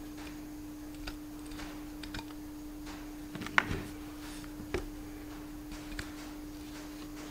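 Light metallic clicks and taps as the nut is run onto the stub axle of a tractor front wheel hub by hand and the hub is handled, the loudest sharp clack about three and a half seconds in. A steady hum runs underneath.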